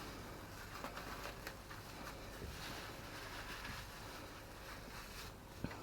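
Faint rustling and small crackles of cling film being wrapped around a ball of dough, with a sharper click near the end.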